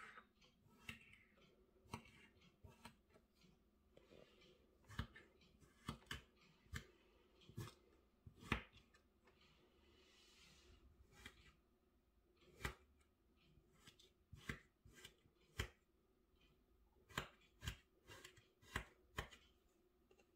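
Irregular crisp clicks and taps, roughly one a second with short pauses between, over a quiet room.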